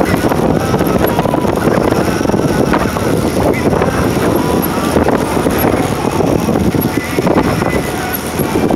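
A moving motorcycle on the road: its engine running under a steady loud rush of wind and road noise.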